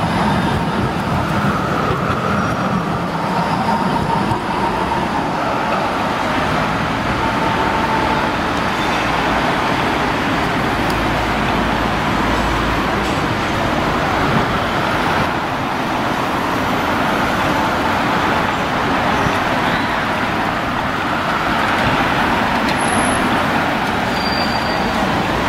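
Street trams on city-centre track: a low-floor tram rolling past close by at the start, then another tram approaching, over steady traffic noise. Faint short tones come and go in the first several seconds.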